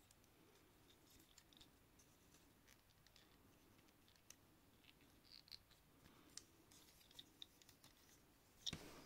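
Faint, scattered clicks and light scrapes of a plastic Transformers Dragstrip figure being handled, its small joints and panels moved by hand. The clicks come more often in the second half, with a louder brush of fingers on plastic near the end.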